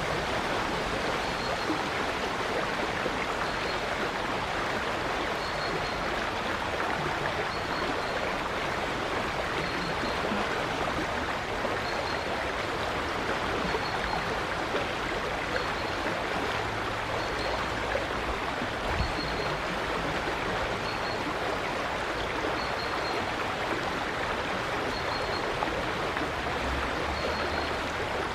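River water flowing steadily over stones, a constant rushing babble. A faint, short high chirp from a bird repeats every couple of seconds.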